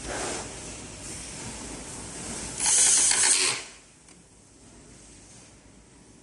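Mechanical parts being handled during a teardown, with a loud ratcheting rasp lasting about a second near the middle.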